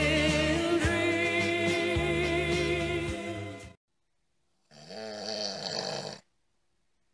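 The closing bars of a song, which stop about three and a half seconds in. After a second of silence, a man snores once, a single drawn-out snore of about a second and a half.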